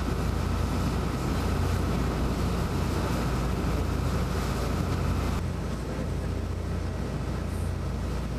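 Boat engine running steadily under way, with wind buffeting the microphone and water rushing past. About five seconds in the sound changes abruptly and turns duller.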